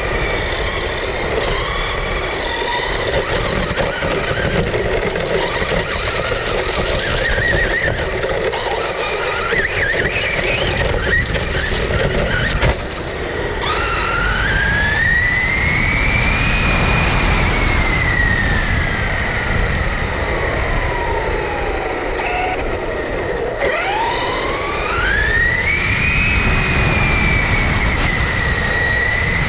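Traxxas Rustler brushless electric motor whining over rough road and wind noise. About halfway through, the whine rises sharply as the car accelerates, falls slowly over several seconds as it eases off, then rises sharply again near the end.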